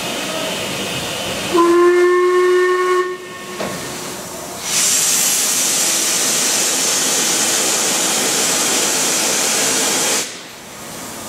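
Black Five 4-6-0 steam locomotive 45212 gives one whistle, about a second and a half long, over a background of hissing steam. About five seconds in, a loud steady hiss of escaping steam starts, and it cuts off suddenly near the end.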